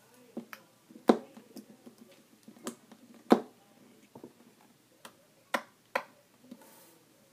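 Glitter slime being squished and poked by hand, making irregular sharp clicks and pops, the loudest about one and three seconds in.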